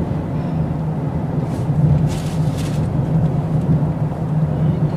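Car cabin noise while driving at highway speed: a steady low hum of engine and tyres on the road, with a brief hiss about two seconds in.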